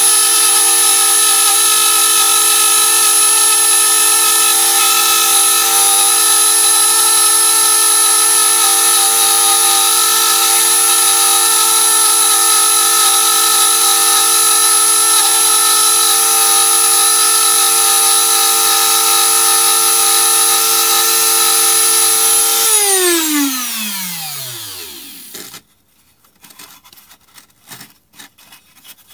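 Dremel rotary tool with a routing bit running at steady high speed, a high whine with several pitches, while routing a homebrew PCB. About 23 seconds in it is switched off and the whine falls in pitch as the motor spins down over about three seconds, followed by a few faint clicks.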